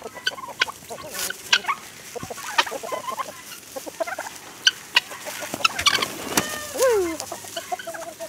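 A backyard flock of chickens and other poultry clucking, with many short sharp calls and one longer falling call about seven seconds in.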